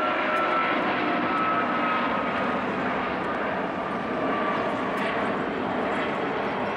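Boeing 777-200ER's twin Rolls-Royce Trent 892 turbofans at takeoff power during climb-out: steady jet noise with a high fan whine that slowly falls in pitch as the aircraft passes.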